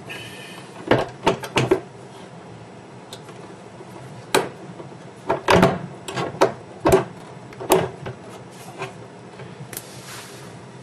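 Irregular clicks and knocks, about a dozen in all, from cabinet hinge hardware and cabinet doors being handled.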